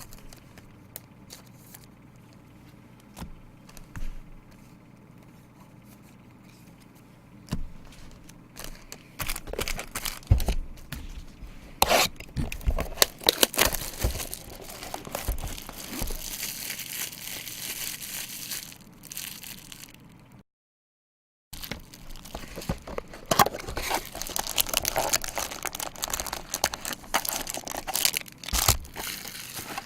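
Plastic card packaging being torn open and crinkled, in repeated loud bursts of ripping and crumpling after several quieter seconds of faint handling clicks. The sound cuts out completely for about a second roughly two-thirds of the way through.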